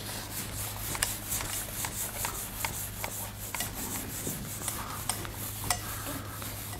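Whiteboard eraser wiped hard across a whiteboard in quick repeated strokes, a rubbing swish two or three times a second, with a few clicks.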